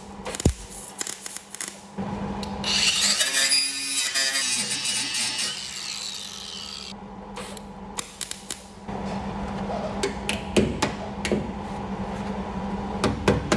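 MIG welder tacking and running a short bead on a sheet-steel patch panel, crackling in short bursts and then for about four seconds without a break. From about nine seconds in, a hammer strikes the freshly welded patch in a series of sharp knocks.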